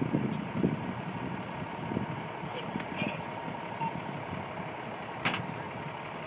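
Steady low street noise of idling vehicles, including a fire engine on scene, with a faint continuous high tone. A few light clicks, and one sharp click about five seconds in.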